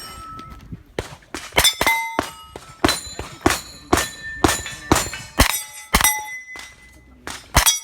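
Rapid 9mm pistol-caliber carbine shots at steel targets, each shot followed by the clang and brief ring of a steel plate being hit, about two shots a second in strings, with a pause about six seconds in before one more shot.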